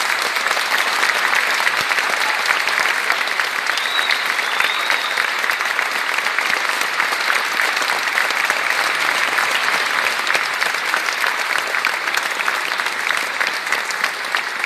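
Theatre audience applauding, sustained clapping that starts suddenly and continues steadily.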